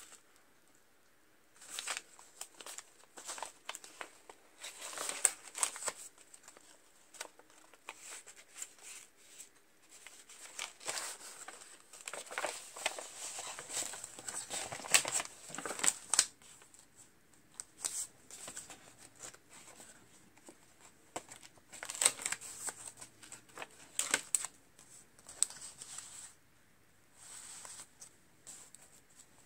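Hands handling a coil-bound paper journal: the plastic sleeve of a bead-filled shaker pocket crinkling and paper pages being turned, in irregular short rustles with brief pauses.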